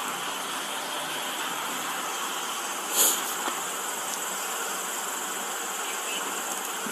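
Steady hiss of background street noise picked up by a police body-worn camera's microphone, with a brief rustle about three seconds in.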